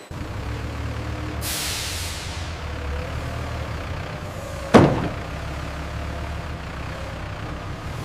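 Heavy truck engine running with a steady low rumble, a falling hiss of released air about a second and a half in, and one loud sharp bang near the middle.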